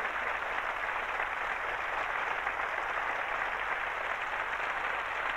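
Audience applauding steadily at the end of a tap-dance number, dense clapping with no music.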